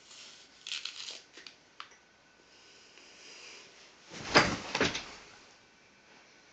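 A few crisp crunches of a bite into a raw apple near the start. About four seconds in comes a heavy thump with a rustle and a second knock as a person drops onto the floor.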